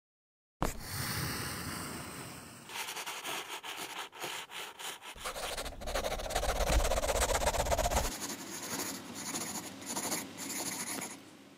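Pencil scratching on paper, many rapid sketching and shading strokes, as a sound effect for a hand-drawn logo animation. A deep rumble swells under the scratching for about three seconds in the middle, then cuts off suddenly.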